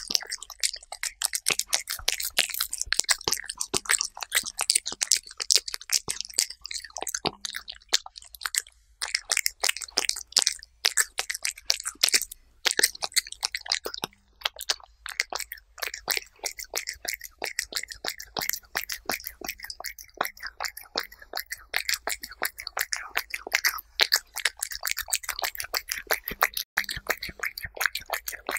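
A cat eating soft chicken-breast puree right at a small microphone: a fast, dense run of wet chewing clicks, with a couple of short breaks.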